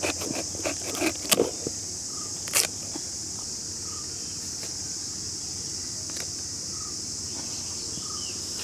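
A knife cutting through a tender jackfruit on a wooden board, with a few sharp knocks and cuts in the first three seconds. A steady, high insect chorus runs underneath.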